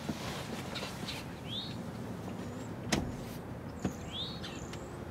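Two short sharp clicks, about three and four seconds in, from the BMW M235i's front seat as its backrest is handled, over a low steady background with birds chirping.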